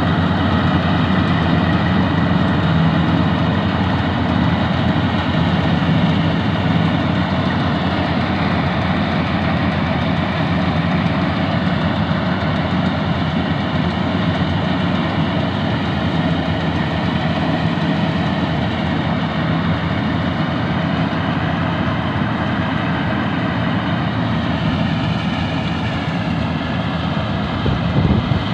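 Engine of a rice-farming machine running steadily: a continuous low drone with fainter whining tones above it.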